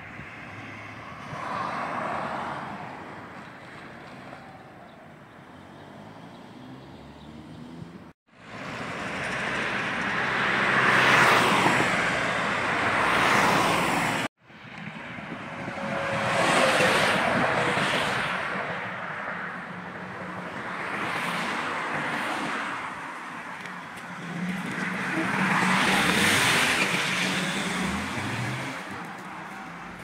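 Road traffic: vehicles passing one after another, each swelling and fading over a few seconds. The sound cuts out abruptly twice, about eight and fourteen seconds in.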